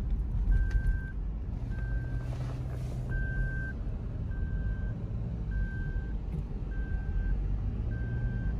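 Steady road and engine noise inside a moving Toyota car's cabin, with a short electronic beep repeating about every 1.2 seconds, seven times.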